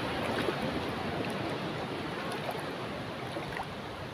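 Steady rush of wind buffeting the microphone, mixed with shallow sea water washing over a reef flat at low tide.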